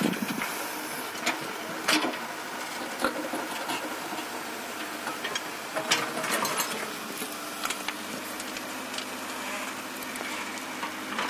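Komatsu PC78US-11 mini excavator's diesel engine running steadily under working load while its bucket digs and tamps loose soil and stones. Sharp knocks and clanks come several times, the most distinct about two seconds in and around six seconds in.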